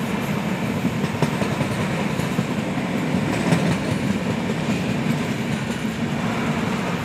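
Indian Railways LHB passenger coaches rolling past: a steady rumble of wheels on rails with occasional faint clicks.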